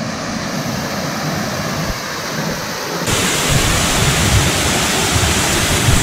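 Water pouring over a small stone weir waterfall into a rocky stream: a steady, loud rush. About three seconds in it becomes louder and brighter.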